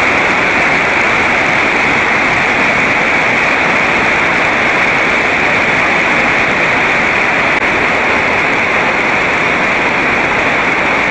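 Steady, loud rush of water from a stream flowing through the cave, an even roar with no break.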